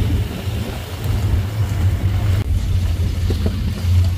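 Safari canter truck's engine running as it drives along, heard from on board: a steady low rumble with road noise. A higher hiss drops away sharply about halfway through.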